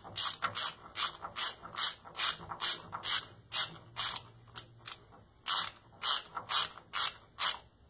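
Socket ratchet clicking in quick back-and-forth strokes, about two a second, with a short pause about five seconds in, as it turns the caging bolt on a truck's spring brake chamber to uncage it.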